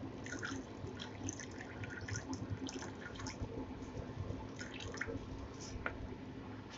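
Water being poured into a small bowl of dark sauce, splashing and trickling in irregular spurts, with a short lull partway through.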